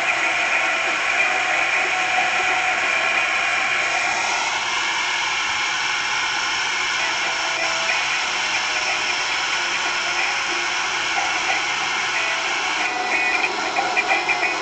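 Small motorized toy train running: a steady whirring and clattering of its motor and gears.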